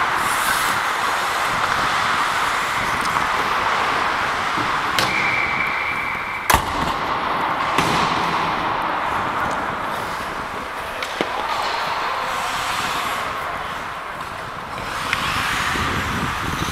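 Ice hockey play heard at close range: a steady scraping hiss of skate blades on ice, broken by sharp clacks of sticks and puck, the loudest about halfway through. A brief steady high tone sounds about a third of the way in.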